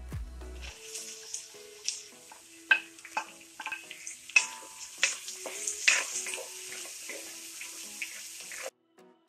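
Chopped onions sizzling in hot coconut oil in an aluminium kadai, with sharp clacks of a spatula stirring them against the pan. The sizzle starts as the onions go in and cuts off suddenly near the end.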